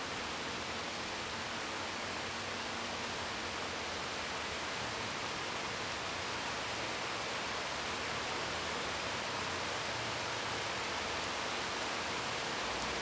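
Steady rain falling, an even hiss without single drops standing out.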